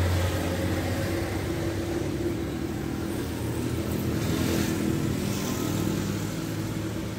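Briggs & Stratton 43cc two-stroke brushcutter engine running steadily, driving a shaft fitted with new bushings in place of worn ones that made noise in the shaft tube.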